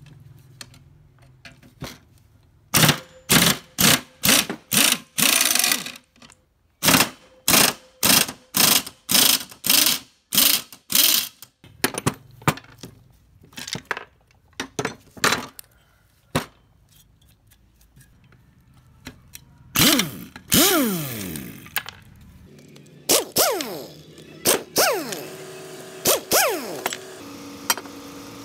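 A quick run of short rasping strokes, two to three a second, then several pull-start attempts on a small two-stroke engine: each pull spins it over with a whine that falls in pitch as it slows, without it catching.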